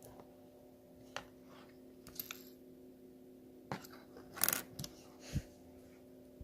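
Small plastic Lego pieces and their packaging being handled: scattered sharp clicks and short crackly rustles, the loudest cluster a little over four seconds in, over a steady low hum.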